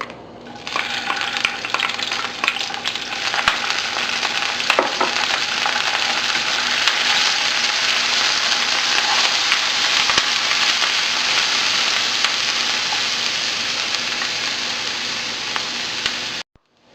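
Chopped garlic and onion sizzling in hot cooking oil as they are sautéed in a pan, starting about a second in. A utensil clicks against the pan during stirring in the first few seconds. The sizzle cuts off abruptly near the end.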